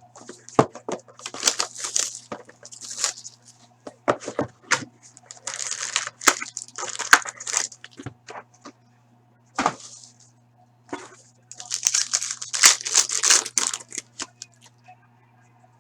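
A sealed box of hockey cards being torn open by hand: repeated bursts of crinkling wrapper and tearing, with a few sharp clicks.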